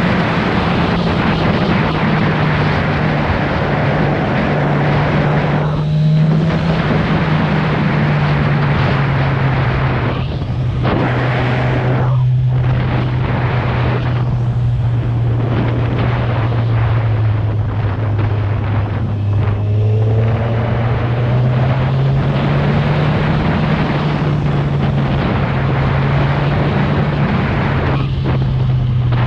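Kawasaki Z1000R's inline-four engine on its stock exhaust, running under way at steady mid revs, with wind and road noise. Its pitch steps down about six seconds in, then sags and rises slowly with the throttle.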